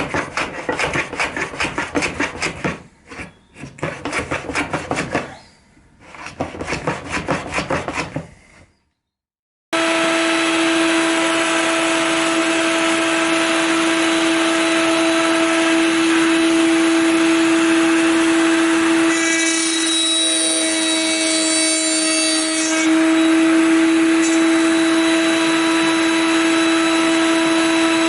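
Fast, rhythmic rasping strokes in three bursts, then, after a sudden break, a router on a router table running at full speed with a steady high whine while it cuts box-joint slots in the wood; the sound changes for a few seconds near the middle.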